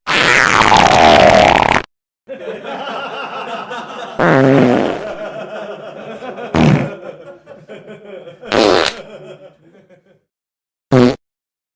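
A run of fart sounds: a long, loud blast that dips in pitch and rises again, then a long sputtering, crackling stretch broken by three louder blurts, and one short blurt near the end.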